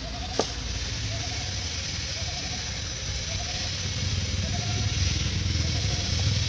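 A motor vehicle's engine hums steadily and grows louder toward the end. Over it, a short high chirp repeats about once a second, and a single sharp click sounds near the start.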